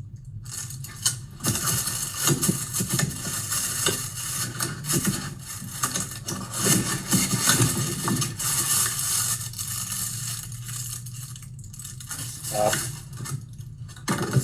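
A new light fixture's parts and packaging being handled: irregular rustling with light clinks of small metal mounting hardware.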